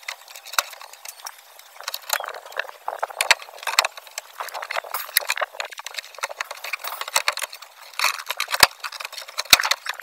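Plastic refrigerator door shelves being handled and fitted onto the door liner: a run of light plastic clicks, knocks and rattles, with two sharper knocks near the end.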